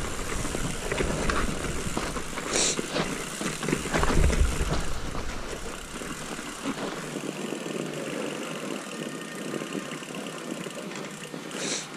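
Mountain bike rolling fast down a snow-covered trail, heard from a camera on the bike: a steady rush of tyre and air noise with a few short knocks and rattles from the bike. A heavy low rumble under it drops away about seven seconds in.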